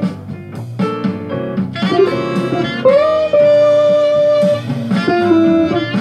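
Electric guitar, a Gibson Les Paul, playing a jazz line: quick single notes, then a note bent up and held for over a second about three seconds in, then more quick notes near the end.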